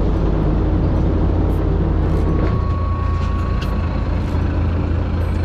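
Fishing boat's engine running with a steady low hum, under a rushing noise of wind and water. The hum shifts slightly about halfway through.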